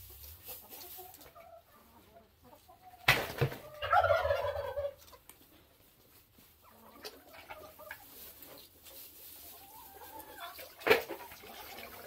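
Chickens clucking softly, with one loud squawk lasting about a second around four seconds in. Two sharp knocks, one about three seconds in and one near the end, are the loudest sounds.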